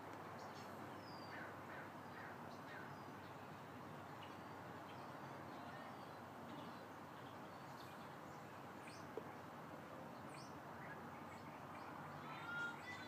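Faint outdoor ambience with scattered short bird chirps. Near the end comes a short, distant scream, the loudest sound.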